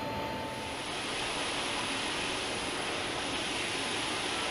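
Lockheed C-5 Galaxy's four turbofan engines running as the aircraft taxis: a steady jet rush with a thin high whine over it. For about the first second there is instead a steady hum with a single thin tone.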